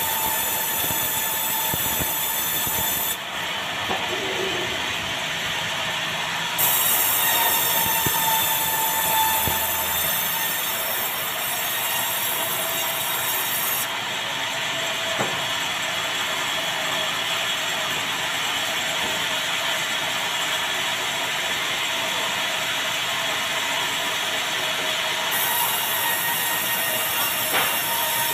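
Sawmill band saw running and sawing through meranti timber, a steady mechanical din. A high whine rises over it three times and then drops away.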